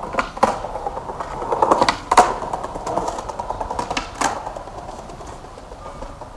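Skateboard wheels rolling over stone paving, a steady rumble broken by a few sharp clacks as the wheels cross joints, the loudest about two seconds in; the rumble fades away after about four seconds.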